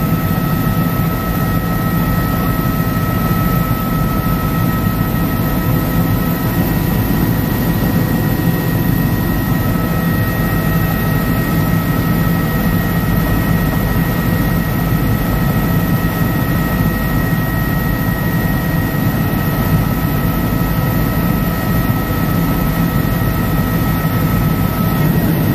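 Helicopter engine and rotor noise heard from inside the cabin in flight: a loud, steady drone with a couple of faint, constant whining tones above it.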